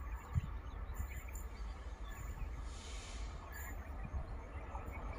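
Faint outdoor ambience: a steady low rumble with occasional thumps, like wind on the microphone, under scattered faint bird chirps, with a brief hiss about three seconds in.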